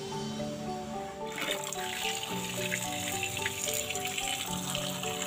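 Tap water running and splashing onto smoked fish as they are rinsed by hand in a plastic bowl, starting about a second in. Background music plays throughout.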